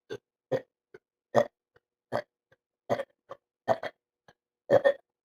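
A rapid string of short burps, about eight of them at roughly two a second, one right after another.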